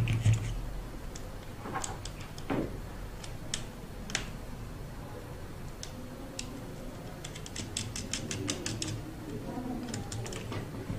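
Small sharp clicks and taps of metal hardware, nuts and screws being handled and fastened on a hexapod robot's metal frame. It opens with a knock, and a little past halfway there is a quick run of about a dozen clicks.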